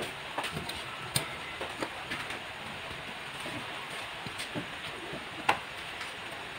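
A few light, scattered clicks and taps over a low background hum, the sharpest one about five and a half seconds in.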